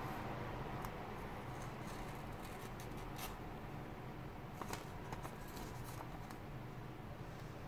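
A bare Olfa 60° 9 mm snap-off cutter blade drawn sideways across the edge of a strip of A4 paper, cutting into it: a faint rasping of steel on paper with a few small ticks, the clearest about three seconds in and again a little before five seconds.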